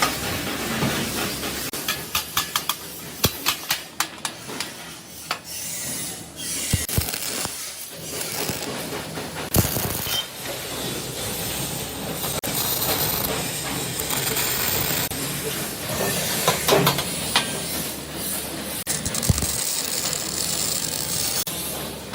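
Factory workshop noise: a steady hiss with many sharp metallic clicks and knocks, thickest a few seconds in and scattered after.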